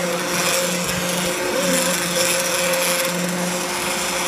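A small electric motor running steadily, with a low hum under a broad whirring hiss.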